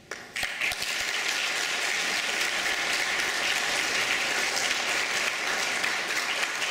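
Audience applauding, starting abruptly about half a second in and holding steady.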